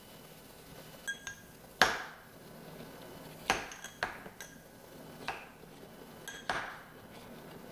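A bar muddler pounding diced pear against the bottom of a cut-glass tumbler: about eight sharp knocks, irregularly spaced, several of them followed by a brief ring from the glass. The loudest knock comes about two seconds in.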